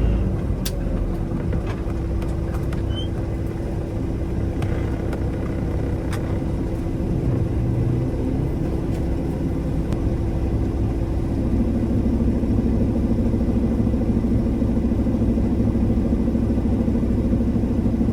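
Semi truck's diesel engine running with a steady low drone; about eleven seconds in, a second, lower engine note comes in and holds.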